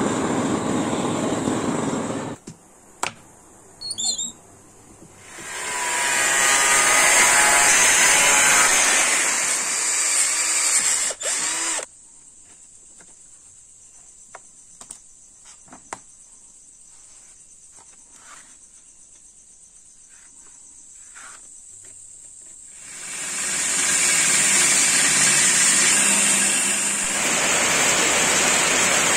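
A gas blowtorch flame hissing against a steel axe blade for a couple of seconds, followed by a few sharp clicks and then a second loud hissing stretch of about six seconds. Next comes a long quiet spell of small clicks and taps from hands working the blade. About six seconds before the end, heavy rain starts falling on banana plants.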